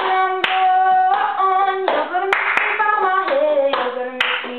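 A singer carrying a melody in held notes over a cup-song rhythm: hand claps and a plastic cup being tapped and knocked, a sharp hit every half second to second.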